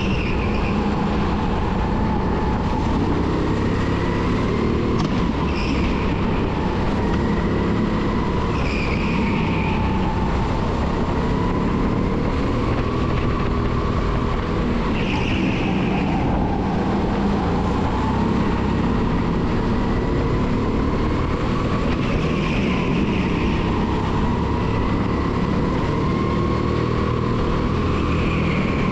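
A 270cc single-cylinder four-stroke rental kart engine running hard through a lap, its pitch rising and falling as the throttle opens on the straights and eases through the corners. Short high squeals come every several seconds.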